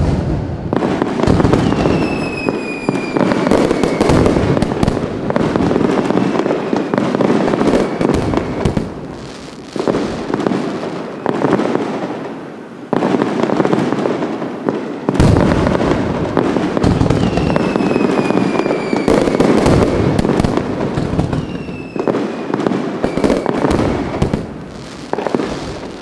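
Fireworks bursting: dense crackling and popping of many shells going off together. A whistling tone falls in pitch about two seconds in and again about seventeen seconds in.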